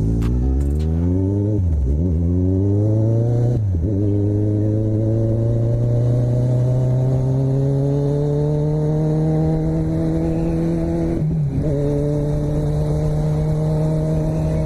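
Kawasaki Z1000's inline-four engine accelerating hard through the gears, its pitch climbing and dropping at three upshifts, about two, four and eleven seconds in, then settling to a steady note.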